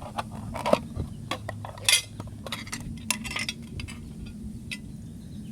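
Clicks, clinks and rattles of new fidget spinners being unboxed and handled, with the sharpest rattle about two seconds in and a quick run of clicks around three seconds.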